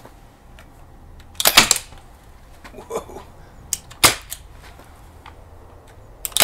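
Two shots from Crosman 1077 CO2 air rifles, about two and a half seconds apart: sharp gas cracks fired in turn from a rifle with a 3D-printed moderator and one without. A fainter short sound falls between them.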